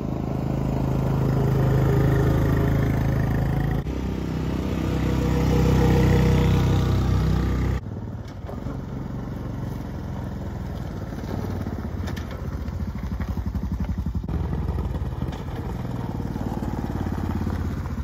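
Honda Recon 250 ATV's single-cylinder engine running as it rides past on pavement. The engine swells twice in the first eight seconds, drops abruptly about eight seconds in, then runs more evenly.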